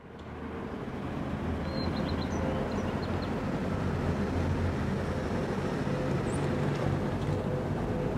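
Steady vehicle engine and road noise, a low rumble that fades in over the first second and then holds, with a few faint high chirps about two seconds in.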